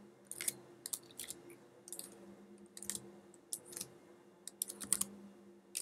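Typing on a computer keyboard: a run of irregular key clicks, over a faint steady hum.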